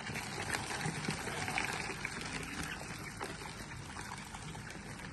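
Water trickling and splashing, with scattered small clicks.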